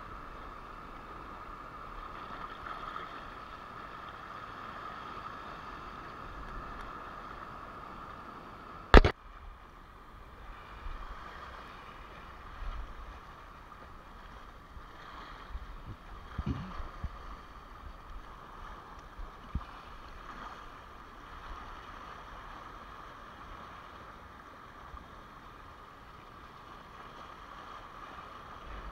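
Sea water washing and lapping over shoreline rocks in a steady wash, with one sharp, loud knock about nine seconds in and a few lighter knocks after it.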